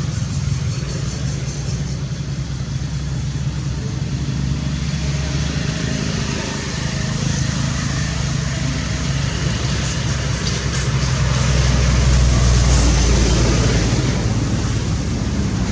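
A steady low engine hum from a motor vehicle, growing louder for a few seconds about twelve seconds in.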